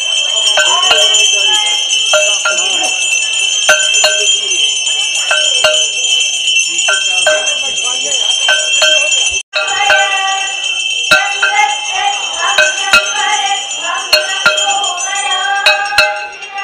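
Hindu aarti: hand bells ringing without pause, with sharp metallic strikes roughly once a second, over devotional singing. The sound breaks off for an instant about halfway.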